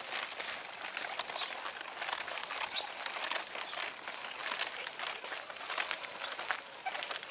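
Footsteps crunching on a sandy dirt road, a steady run of irregular crunches from walking.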